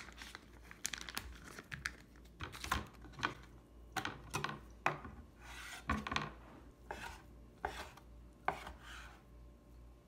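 Kitchen knife chopping raw bacon strips into pieces on a cutting board: irregular sharp knocks of the blade against the board, with some scraping between them.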